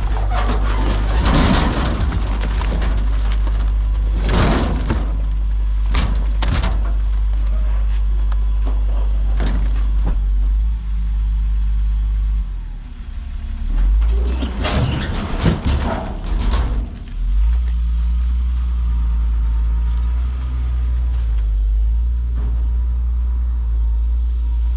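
Heavy vehicle engine running with a steady low drone, dipping and wavering in the middle, while several loud clunks and bangs land over it.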